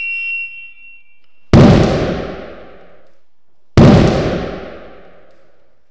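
A high steady beep ends about a second in. Then come two sudden very loud bangs a little over two seconds apart, each dying away over a second or so: an electric arc flash in a box-test rig, a low-voltage 400 V arc struck between aluminium and copper electrodes bridged by a thin copper wire.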